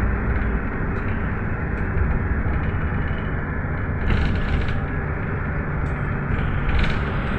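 Cabin noise inside a GAZ-A64R42 Next minibus on the move: steady engine and road rumble, with two short hisses, about four seconds in and near the end.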